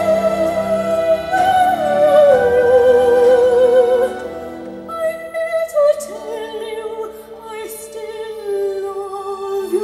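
Female classical vocal with vibrato over orchestral accompaniment, played back from DVD through an NR-MZ90PREMI head unit's built-in amplifier and JL Audio C5-650 component speakers. About four seconds in, the bass drops out and the accompaniment thins, and the voice goes on more softly.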